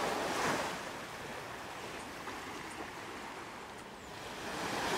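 Small waves breaking and washing up onto a sandy beach: a wash of surf at the start that dies away, then another building up near the end.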